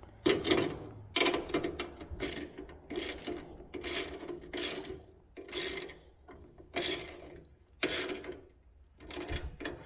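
Socket ratchet clicking in short back-and-forth strokes as a nut is tightened onto a bolt through a metal hanger bracket: about a dozen separate bursts of rapid clicks, roughly one a second.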